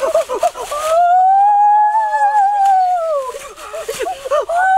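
A high voice singing an ornamented, wavering melody, likely a song laid over the video. About a second in it rises into one long arching held note lasting about two seconds, then the quick wavering resumes near the end.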